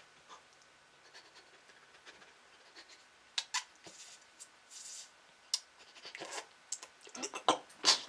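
Quiet sipping from a metal spoon: scattered small mouth clicks and lip smacks, a short breathy slurp about five seconds in, and a quick run of clicks and rustles near the end.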